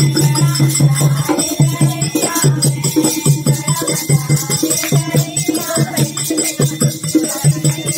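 Devotional bhajan-kirtan music: a dholak drummed by hand in a steady repeating rhythm, with jingling hand percussion and group singing over it.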